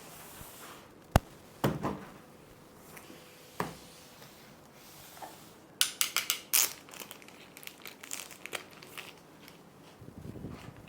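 Packaging being handled during an unboxing: a sharp knock about a second in and a few thumps, then a burst of crinkling around six seconds in, followed by lighter rustling.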